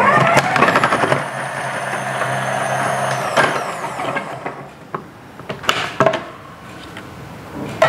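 A 1300-watt Philips HR7776 food processor starts up and runs with a steady hum and high whine, slicing cucumber pushed through its feed tube onto the slicing disc. After about three seconds it is switched off, and the whine falls away as the motor spins down. A few clicks and knocks from the pusher and lid being handled follow.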